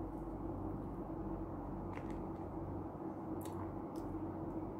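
Eating by hand: a few short wet mouth clicks and smacks while chewing, over a steady low hum.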